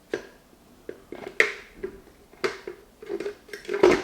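Plastic lid being fitted onto a Ninja Master Prep blender container: a series of separate plastic clicks and knocks, the loudest cluster near the end.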